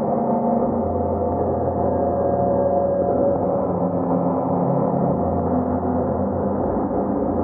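Noise music: a dense, muffled wash of droning sound with a steady low drone and several held tones that come and go every second or two, with no beat.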